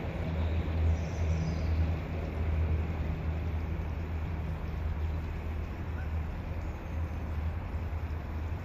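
Steady low mechanical hum and rumble, unchanging throughout.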